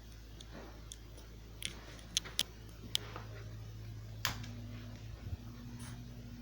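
Ceiling fan being switched on: a handful of sharp clicks, then about two-thirds of the way in the fan motor's steady hum comes on and holds as it starts up.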